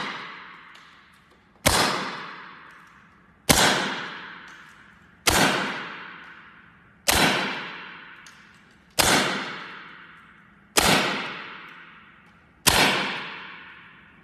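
Evanix semi-automatic .25 calibre PCP air rifle firing 25.39 gr pellets in steady succession, one shot about every two seconds, seven shots in all. Each is a sharp crack followed by a ringing tail that dies away over more than a second. The rifle is on its tenth magazine of the fill, with the air reservoir down to about 90 bar.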